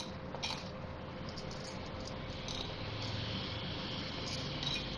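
Metal spoon scraping ground spices off a ceramic plate into a bowl: a soft, gritty scrape with a few light clinks of spoon on plate.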